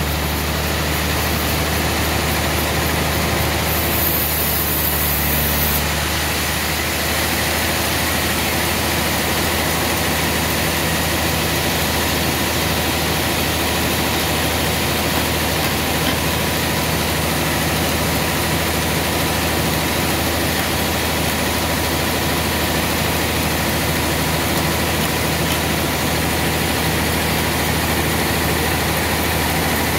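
Band sawmill machinery running steadily: a constant low hum under an even hiss, with no cutting strokes or knocks standing out.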